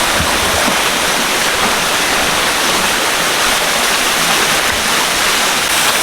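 Tibumana Waterfall's falling water making a loud, steady rush.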